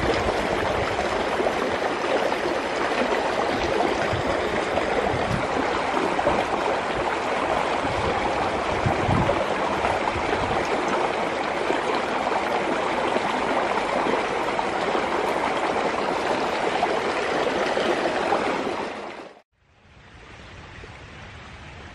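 Fast, muddy stream rushing steadily through a stone culvert, its strong current churning white over the rocks. The water noise cuts off sharply about 19 seconds in, leaving a much quieter background.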